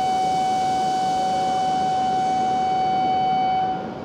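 Steady electronic warning buzzer sounding on one unchanging pitch before a shinkansen departs, then cutting off suddenly near the end.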